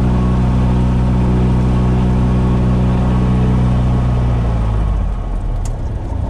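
Cessna 172's four-cylinder Lycoming piston engine and propeller running steadily. About four and a half seconds in, the engine note drops to a lower, rougher running.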